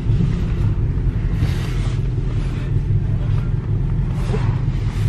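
Hemi V8 of a Chrysler 300 running with a steady low rumble, heard from inside the cabin.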